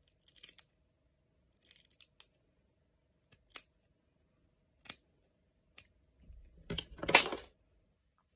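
Hair-cutting scissors snipping through a lock of hair, several short separate cuts, then a louder rustle of hair being handled near the end.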